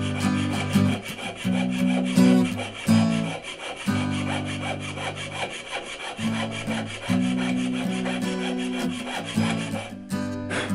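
Jeweller's piercing saw cutting through a thin engraved metal plate on a wooden bench pin, in a quick steady run of short strokes. Background music with long held low notes plays under it.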